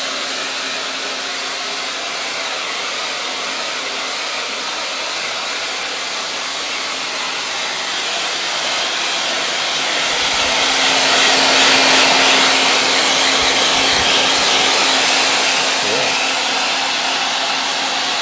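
Handheld hair dryer blowing steadily with a motor hum, drying the paint over a crackle medium on a chair back so the top coat crackles. It grows louder about halfway through.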